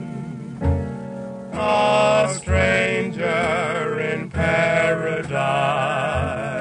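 Background music: a song with a singer holding long notes with vibrato over an accompaniment with a deep recurring bass note.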